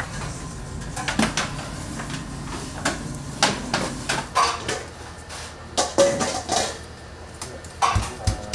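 Irregular clinks and clatters of metal kitchen utensils and trays being handled at a bakery's work counter, with a brief metallic ring about six seconds in.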